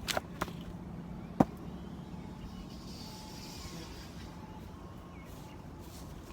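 A 4.5 lb Marathon axe chopping wet acacia wood: a few light knocks at the start, then one sharp, loud strike about a second and a half in.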